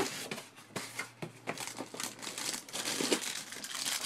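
Packaging rustling and crinkling, with scattered clicks and taps as items are lifted out of the box, getting busier and louder near the end.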